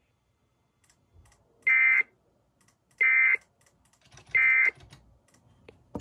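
Sage EAS ENDEC sending the End of Message (EOM) signal: three short bursts of data tones about 1.3 seconds apart, marking the end of the emergency alert. Faint clicks between the bursts.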